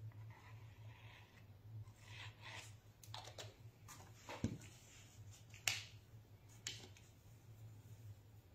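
Small clicks and taps of acrylic ink dropper bottles being handled and set down on a table, with a dull knock as a bottle is put down about halfway through and a sharper click soon after. A steady low hum runs underneath.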